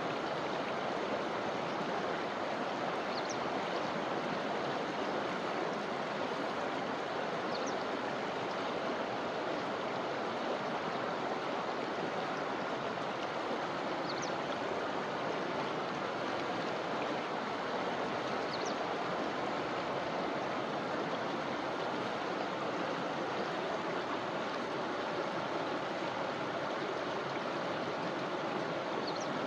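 Forest river flowing in a steady, even rush of water. A faint short high chirp comes through about five times, a few seconds apart.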